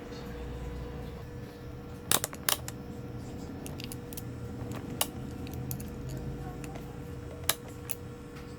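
Small metal tools clicking and tapping on an electronics workbench: a few sharp clicks spread across several seconds, over a faint steady hum.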